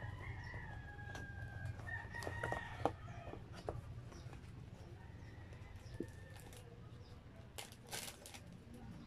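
Faint rooster crowing more than once, over crinkling and crackling of a plastic bag and paper packaging as a food tray is unwrapped by hand, with the sharpest crackles about three seconds in and near the end. A steady low hum runs underneath.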